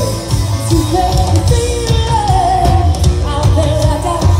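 Live pop-rock band playing loud through a PA: a woman singing lead over keyboards, electric guitar and drum kit, with a heavy bass low end and steady drum beat.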